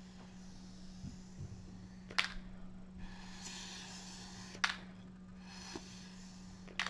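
Sucking through a plastic drinking straw to pick up cereal marshmallows, with a faint airy hiss, and three sharp, light clicks: about two seconds in, about four and a half seconds in, and near the end.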